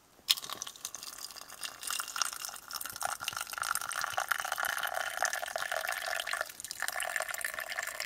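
Water poured from a metal thermos flask into a stainless steel mug over a tea bag: a steady splashing trickle into the cup, with one short break about two-thirds of the way through.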